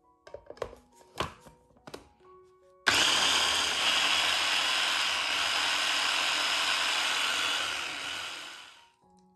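Electric mini food chopper running, its blades whirring through shiitake mushrooms and carrot. It starts suddenly about three seconds in after a few light knocks, runs steadily for about five seconds, then winds down near the end.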